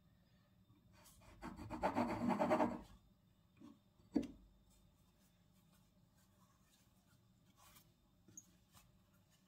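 Kitchen handling noise during food preparation: a brief scraping or rubbing lasting about a second and a half, a single knock about a second later, then a few faint clicks.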